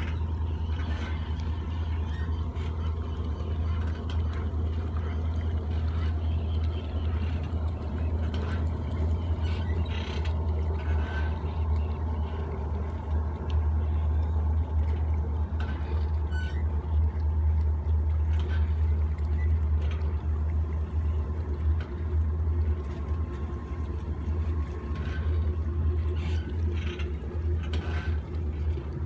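Boat engines idling at low speed: a steady low rumble while a cabin cruiser turns slowly on calm water.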